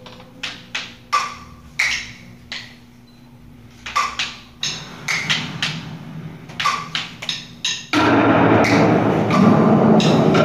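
Hand-held wooden sticks struck in a sparse, irregular pattern, each a sharp click with a short ring. About eight seconds in, a sudden loud, dense wash of sound starts and keeps going.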